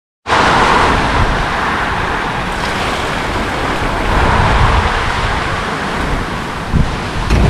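Strong storm wind rushing steadily through trees, with gusts buffeting the microphone in a low, uneven rumble. It cuts in abruptly just after the start.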